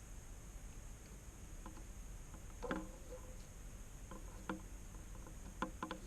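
Faint clicks and ticks of the thin insulated wires of a Cat5 cable being handled and straightened, a few scattered single ticks and a small cluster near the end, over a steady low hiss.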